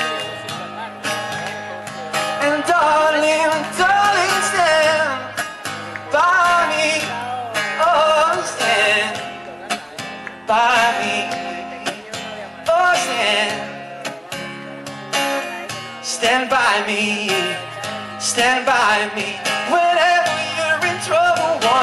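A man singing a song to acoustic guitar accompaniment.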